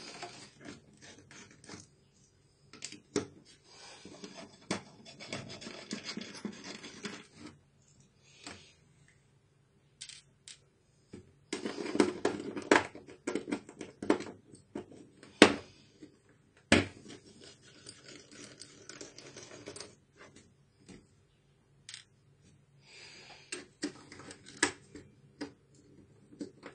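Hands and a small screwdriver handling the plastic case and metal inner plate of an HP Mini 110 netbook under disassembly. Irregular scraping and rubbing comes with many sharp clicks, and two loud knocks fall a little past halfway.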